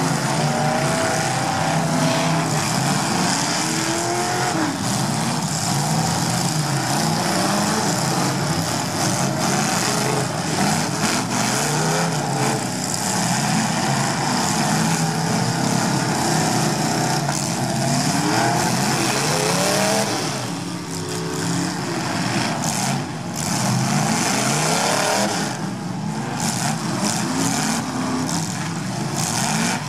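Engines of several demolition derby cars revving hard at once as they churn through deep mud, many pitches rising and falling over one another.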